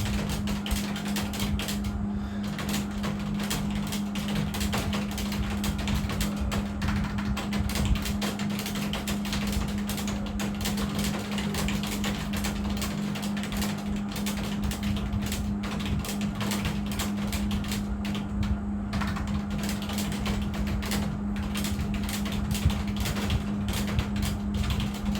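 Computer keyboard typed on fast and without a break: a dense, continuous patter of key clicks, over a steady low hum.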